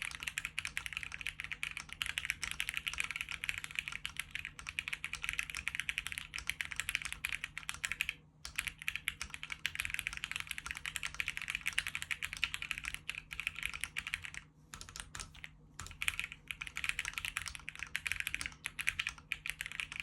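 Fast typing on a Weikav Sugar65 metal-cased custom mechanical keyboard: a dense run of keystroke clacks, broken by a short pause about eight seconds in and a couple of brief pauses a little past halfway.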